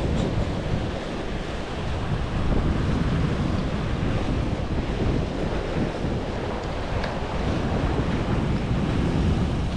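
Wind buffeting the microphone over the wash of sea waves: a steady rushing noise, strongest at the low end.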